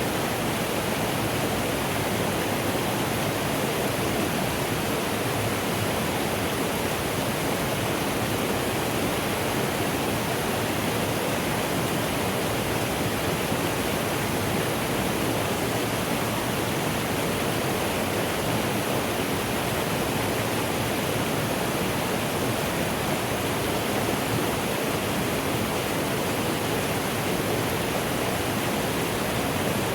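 Mountain stream rushing steadily, a constant, unchanging wash of running water.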